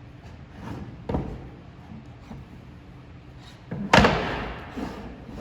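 Red oak collapsible camp stool being folded and opened: wooden parts knock together about a second in, then a loud wooden clack about four seconds in, followed by a couple of lighter knocks.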